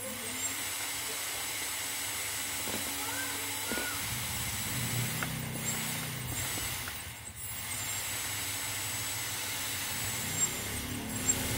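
Bare 2204 2300kv brushless outrunner motor with no propeller, driven by a 20A ESC, spinning up on the throttle during a bench test. Its hum comes in about four seconds in, eases off briefly near seven seconds, then runs again.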